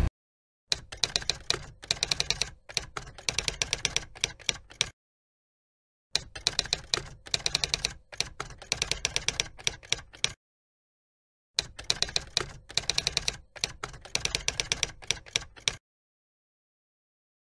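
Typing on a keyboard: rapid key clicks in three runs of about four seconds each, separated by dead silence of about a second, then silence near the end.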